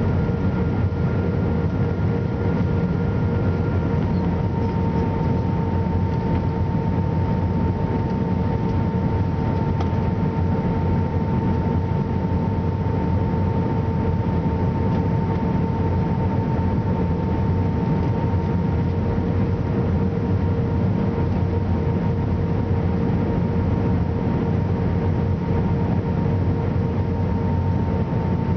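Airbus A321 cabin noise on approach: a steady rumble of engines and airflow heard inside the cabin, with two steady humming tones over it. A fainter, higher tone drops out a few seconds in.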